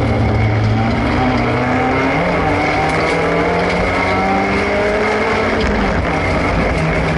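Racing car's engine heard from inside the cabin, pulling hard through a slalom course. It climbs in revs after about two seconds and drops back near six seconds, with a steady high whine throughout.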